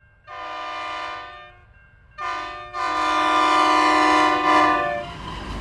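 Multi-tone locomotive air horn sounding a chord in three blasts: one of about a second, a short one, then a long one of about two seconds.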